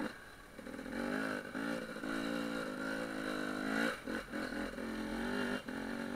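Enduro motorcycle engine running under throttle, its pitch wavering and rising a little, with brief dips in the engine note a few times in the second half. A short sharp knock comes right at the start.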